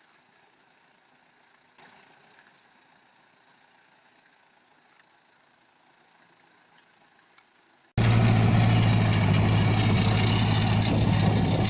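Near silence with a single sharp click about two seconds in. Then an abrupt cut, about eight seconds in, to a loud, steady engine running, the tractor and root harvester machinery at work.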